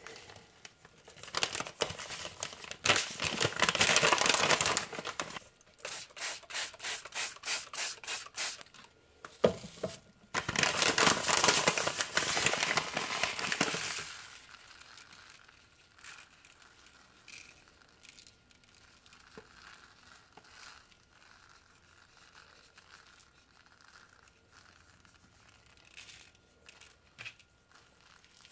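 A bag of black mustard seeds crinkling and rustling as it is handled and shaken, including a run of quick even shakes. About halfway through it goes quiet, leaving only faint light ticks as the seeds are scattered by hand onto a paper towel.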